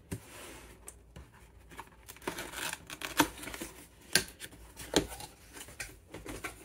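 Cardboard box being opened by hand: flaps pulled open and the packing inside handled, with scrapes and rustles and a few sharp knocks.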